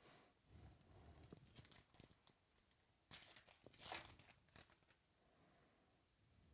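Faint tearing and crinkling of a trading card pack wrapper being opened, with cards being handled. It is loudest a little past the middle.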